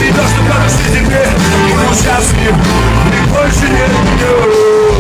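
Loud live concert music, recorded on a phone in a crowded club, with a heavy bass line and a sustained sung or synth note held near the end.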